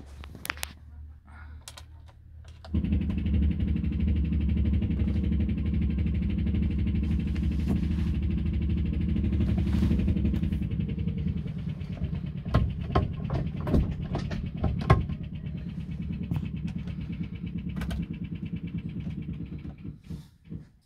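1955 Morris Oxford Series II four-cylinder petrol engine catching on a cold start about three seconds in, then running steadily. It settles a little quieter about halfway through, with a few knocks over it, and is switched off just before the end.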